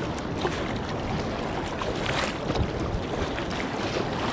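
Sea water rushing and splashing around a paddled kayak's hull in foamy surf, with brief splashes from paddle strokes. The biggest splash comes about two seconds in.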